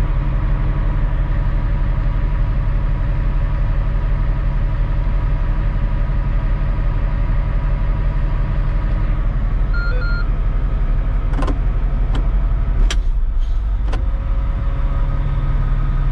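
Caterpillar 777E haul truck's V12 diesel engine idling steadily, heard from inside the cab. A short electronic beep sounds about ten seconds in, followed by a few sharp clicks from the cab controls.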